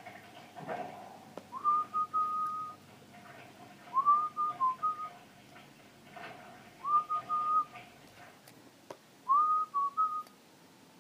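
Whistling in short phrases of a steady high note, each starting with a quick upward slide, repeated four times about two and a half seconds apart.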